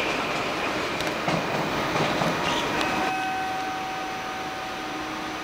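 NS yellow-and-blue double-decker intercity train running past, its wheels rumbling and clicking over the rail joints. About three seconds in this gives way to a quieter, steady electric hum with several held tones from the ICE 3 high-speed train standing at the platform.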